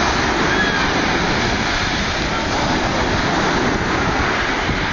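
Sea waves breaking and washing over a pebble beach: a steady, loud rush of surf.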